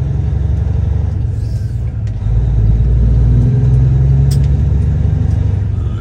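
Semi truck's diesel engine running with a steady low drone over road rumble, heard from inside the cab; it gets louder about two seconds in.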